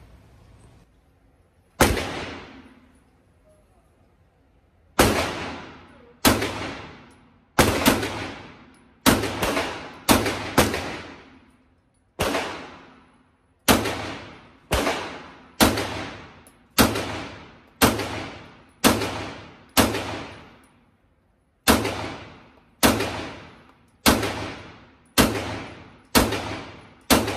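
A Sig Sauer P320 M17 9mm pistol firing about twenty shots, roughly one a second, with a few quick pairs and two short pauses. Each shot rings on in the echo of an indoor range booth.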